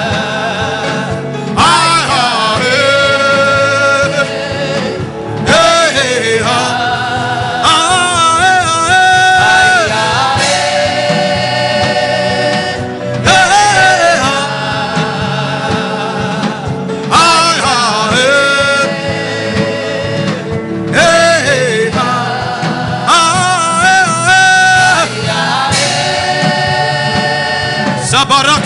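Gospel worship singing with musical backing: sung phrases of a few seconds each with held, wavering notes, repeating with short breaks between them.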